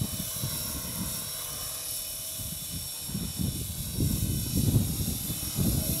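Radio-controlled helicopter with a four-blade main rotor flying at about 1600 RPM head speed: a steady high whine over a rotor rumble that grows louder about four seconds in.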